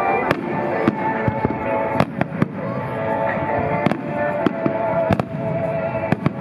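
Aerial firework shells bursting with sharp bangs, about a dozen at uneven intervals, over music playing throughout.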